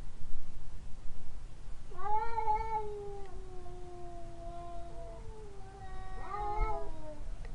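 A cat giving two long, drawn-out meows, one straight after the other, each two to three seconds long, rising in pitch at the start and sliding down at the end.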